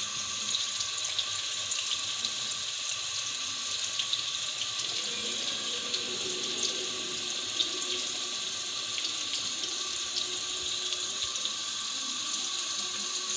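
Steady sizzling hiss of onions frying in ghee, with light plops and clicks as diced carrots are dropped by hand into a steel pot of water.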